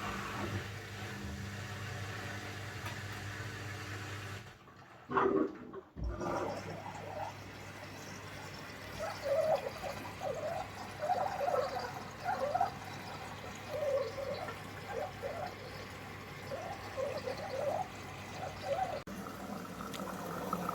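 Beko washing machine taking in water for its softener rinse: water rushing and gurgling into the machine over a steady hum. The hum drops out briefly about four seconds in and comes back with a thump.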